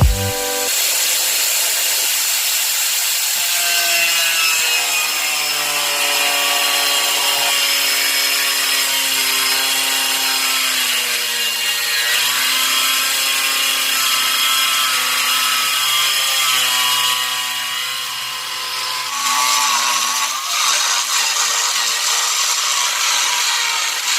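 Electric tile-cutting saw (a ceramic-cutting grinder) running through plywood: a steady motor whine over the hiss of the blade in the wood. The pitch sags as the blade is loaded, about halfway through.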